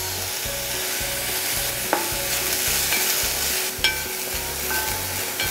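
Sprouts sizzling in hot oil in a wok while a wooden spatula stirs them. There is a steady hiss of frying, with two short clicks about two and four seconds in.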